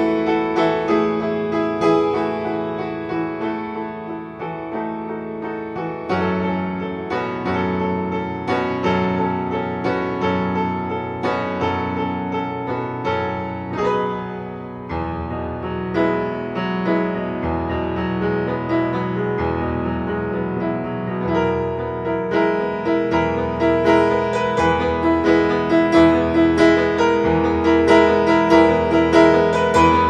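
Solo acoustic piano playing a continuous flowing run of notes over low bass notes, growing louder in the last third.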